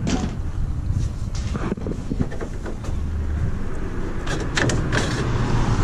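Knocks, rattles and scraping from a camper van's home-built retractable roof being handled and moved on its rails, over a steady low rumble. A cluster of sharper knocks comes about four to five seconds in.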